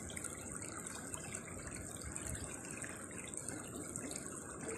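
Small shallow stream babbling steadily over a stony bed.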